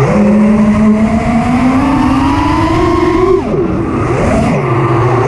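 FPV freestyle quadcopter's BrotherHobby R5 brushless motors and Gemfan Flash props whining. The pitch climbs steadily with throttle, drops sharply about three and a half seconds in, then rises again near the end.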